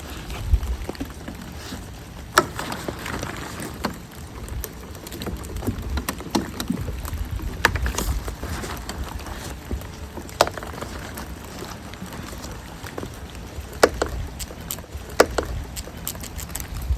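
Outdoor rain ambience: wind rumbling on the microphone, with scattered sharp raindrop taps, the loudest about two and a half seconds in and again near fourteen and fifteen seconds.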